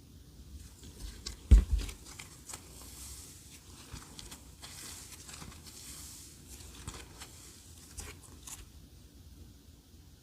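Slime being squished and stretched by hand, with scattered sticky clicks and pops and soft hissing squelches. A single louder thud about a second and a half in.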